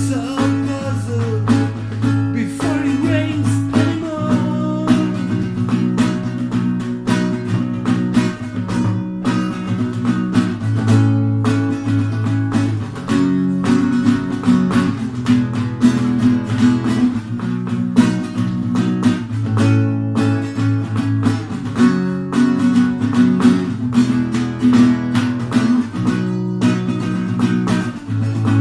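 Rock song played on strummed guitars in a steady, even rhythm, with sliding melodic lines over the first few seconds.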